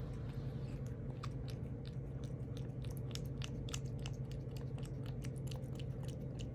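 A cat crunching dry food: a rapid run of crisp chewing clicks, about five a second, over a steady low purr.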